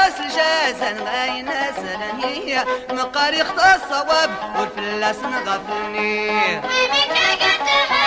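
Background music in a traditional Middle Eastern style: a wavering melody over a steady held drone.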